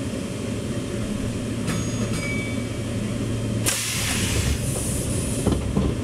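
Running noise heard inside a moving electric commuter train: a steady low rumble and hum. There are a few faint clicks about two seconds in, and a sudden hiss about two-thirds of the way through that lasts around a second.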